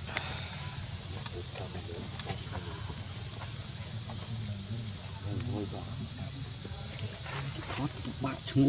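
A steady, high-pitched insect drone fills the air without a break, with faint wavering sounds lower down now and then.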